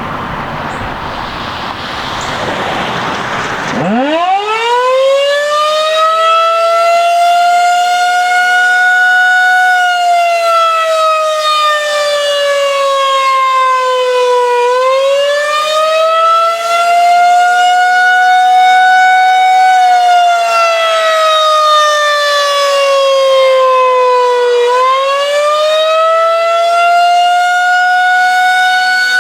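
Federal Signal 2001-130 electromechanical outdoor warning siren winding up from low about four seconds in, then sounding the attack signal: a loud wail whose pitch falls and rises again slowly, about every ten seconds. Before it starts there is a steady rushing noise.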